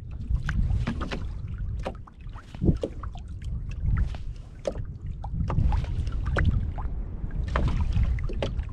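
Wind rumbling on a body-worn GoPro's microphone, with irregular clicks, knocks and short splashes from handling rod, line and fish at the water.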